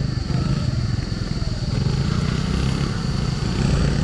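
Small motor scooter engine running at low throttle while rolling slowly down a rough, muddy track, a steady low rumble.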